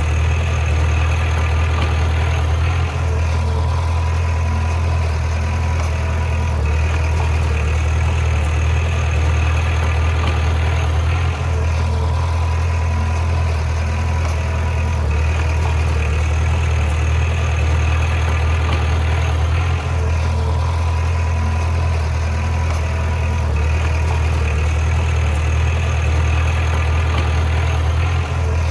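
Heavy diesel engine of earthmoving machinery running steadily, a deep drone underneath with higher engine and machine sound that swells and fades every few seconds.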